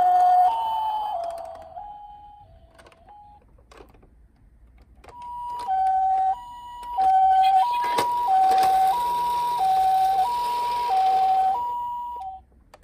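Toy ambulance minicar's electronic siren sounding a Japanese-style two-tone hi-lo wail, the two notes switching back and forth about once every half second. The first run sags in pitch and cuts out about two seconds in; after a pause of a few seconds it starts again and keeps going, with a steady hiss under it for a few seconds near the middle.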